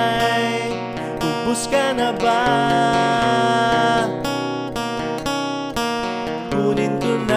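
Background music: strummed acoustic guitar accompaniment.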